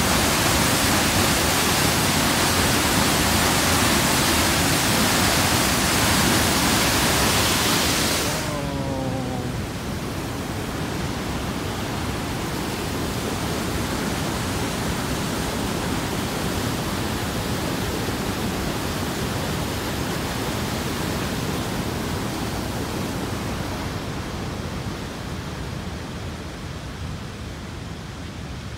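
Sol Duc Falls: a loud, steady rush of falling water. About eight seconds in it suddenly drops to a softer, duller rush of the river through the gorge, which fades further near the end.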